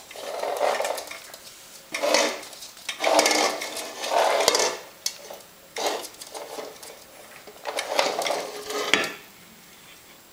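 Red plastic pet water bottle and its metal stand clattering and scraping on a wooden floor as it is knocked about and set upright, in several loud bouts.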